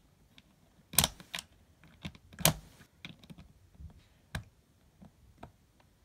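Plastic Lego bricks clicking and knocking as they are handled and pressed onto a baseplate: a handful of sharp clicks at irregular intervals, the loudest about one and two and a half seconds in.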